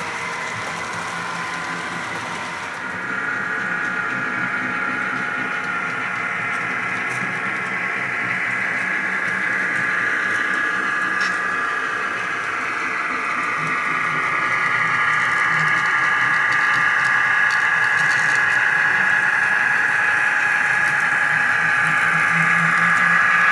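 HO scale model of a BN EMD GP15-1 diesel locomotive running with its freight train: a steady mechanical hum with held whining tones that grows louder as the train comes near.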